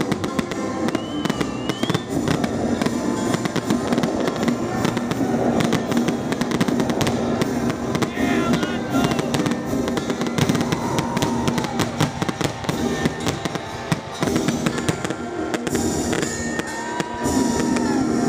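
Aerial firework shells bursting and crackling in rapid succession, with many overlapping reports. Music plays alongside.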